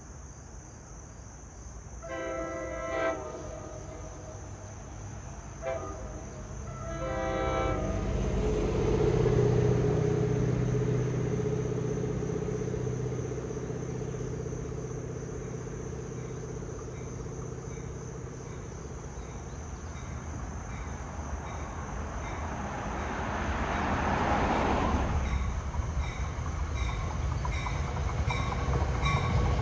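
NJ Transit commuter train sounding its horn for a grade crossing as it approaches: a long chord blast about two seconds in, then a short one and another longer one. Then the rumble of the approaching train builds steadily, and a car passes on the adjoining road about 24 seconds in.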